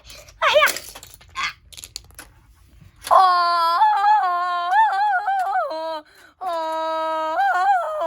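A high voice singing a wordless, wavering tune, starting about three seconds in and holding with a short break near six seconds; before it, only faint crackling and brief vocal bits.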